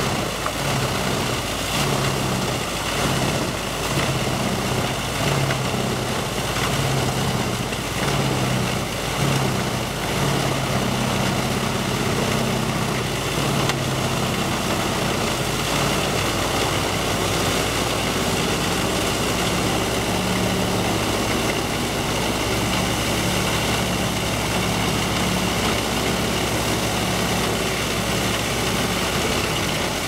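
Wood chipper's engine running steadily, a low drone that swells and eases every second or so in the first half and then holds even.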